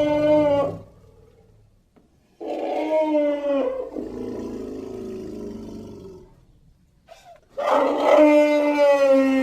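Elephant trumpeting: three loud calls, the first ending just after the start, the second about two and a half seconds in trailing off into a lower, fading tail, and the third starting near the end.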